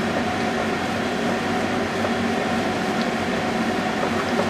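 A steady machine hum with several low droning tones, unchanging throughout.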